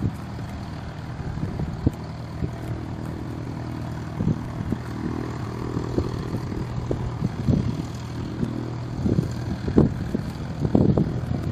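Single-engine light aircraft's propeller engine running steadily at low taxiing power, heard from a distance, with gusts of wind rumbling on the microphone, strongest near the end.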